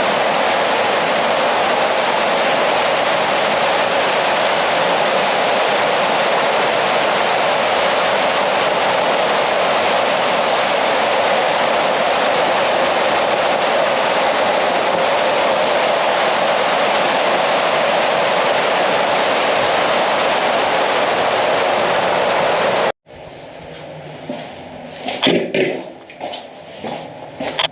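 Underground cave waterfall rushing in a steady, loud roar of falling water, cutting off abruptly about 23 seconds in; after that, a few sharp knocks or steps over quiet.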